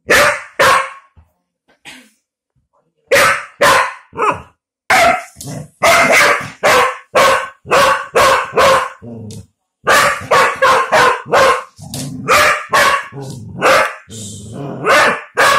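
Collie dog barking excitedly at a spinning fidget spinner: two barks, a pause of about two seconds, then a long run of quick, sharp barks, two or three a second, broken only by a short break about halfway through.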